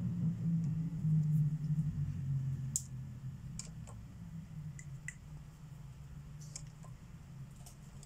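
Sharpie permanent markers clicking and clattering against each other and the tabletop as they are picked up and set down: a scatter of short, sharp clicks. Under them a low hum fades away over the first few seconds.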